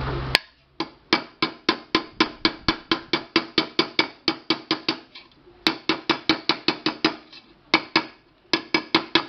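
Small hammer tapping rapidly on the metal rim of a dented pressure cooker, about five light blows a second with a few short pauses, beating the dented metal back into shape.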